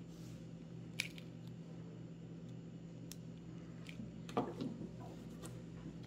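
Faint handling noises from a lock cylinder with its key inserted: a sharp click about a second in and a short cluster of small knocks and rattles around four and a half seconds in as key and cylinder are set down on a wooden table, over a steady low hum.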